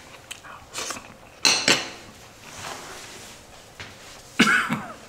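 Metal spoon clinking and scraping against a plate: several sharp clinks, the loudest pair about one and a half seconds in and another near the end, with lighter scraping between.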